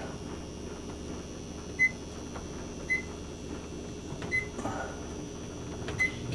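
Short high-pitched beeps from a handheld RF meter, four of them roughly a second or a second and a half apart, over a steady low hum. The meter is picking up microwave radiation leaking through the wall from the running microwave oven.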